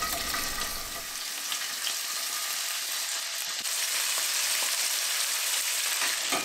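Sliced smoked sausage frying in hot oil in a cast iron skillet: a steady sizzle, growing a little louder about halfway through.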